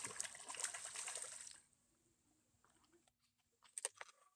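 Water splashing and churning for about a second and a half, then a few faint clicks and taps near the end.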